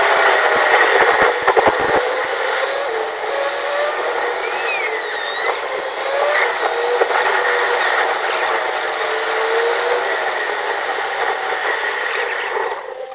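Steady road and wind noise inside a BMW 3 Series cabin at highway speed: a broad, even hiss, with faint wavering tones coming and going over it.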